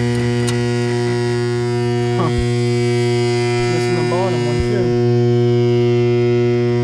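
Loud steady electrical hum at mains frequency with a long series of even overtones, the kind of buzz that energised HVAC electrics give off.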